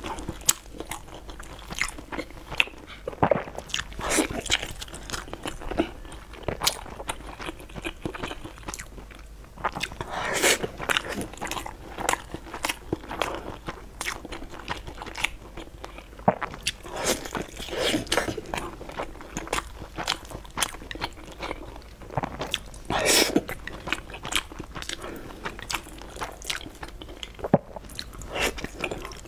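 A person biting and chewing soft, sauce-coated food, with wet mouth sounds and bites coming at irregular intervals.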